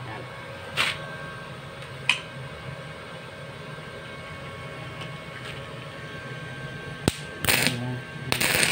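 Stick (arc) welding electrode being struck against steel to start the arc: short crackling bursts of arc near the end, after a sharp click, over a steady low hum. Two brief scrapes come earlier, about one and two seconds in.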